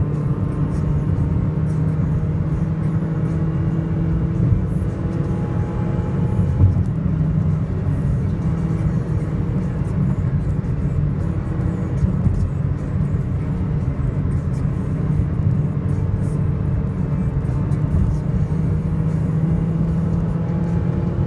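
A tuned Toyota Vios four-cylinder engine with an aftermarket exhaust, heard from inside the cabin as a steady drone at around 4,000 rpm while the car slowly gains speed under load on the motorway. Wind and road noise run underneath.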